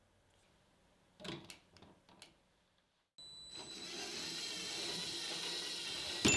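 A few light plastic clicks and knocks, then a LEGO train's small electric motor and gearing starting up with a steady whir and a high whine as the train climbs the sloped track. Near the end comes a sharp tap and a bright ding.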